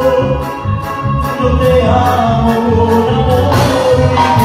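Regional Mexican band playing live: a held melody over a steady, pulsing bass and drum beat with regular cymbal ticks.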